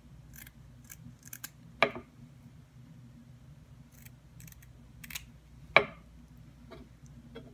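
Kitchen scissors snipping through a fish's gills: a series of short, sharp snips, the two loudest cuts about two seconds in and near six seconds, over a faint steady low hum.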